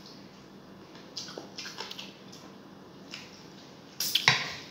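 Eating sounds at a table: a few light clicks and smacks while chewing and handling food, then a louder clatter of tableware about four seconds in as food is taken from the serving dish.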